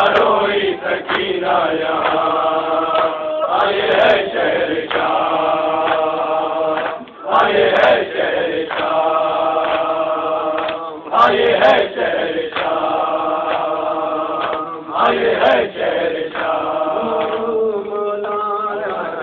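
Nauha, a Shia lament, chanted by male voices: a lead reciter at the microphone with a group of men chanting along, in long held phrases that break about every four seconds.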